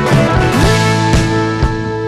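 Rock band playing live: electric guitar and drum kit, with steady drum strikes and cymbals under sustained chords. About half a second in, a held note slides up into place and rings on.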